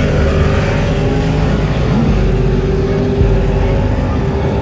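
Sportbike engines idling close by, with a brief short rev about two seconds in.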